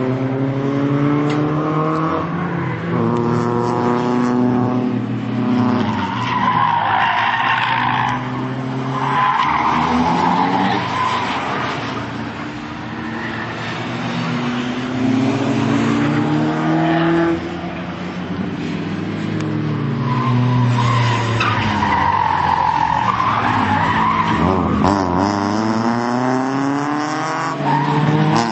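Cars drifting round a race circuit: engines revving, their pitch repeatedly climbing and dropping, with long spells of tyre squeal about six seconds in and again about twenty seconds in.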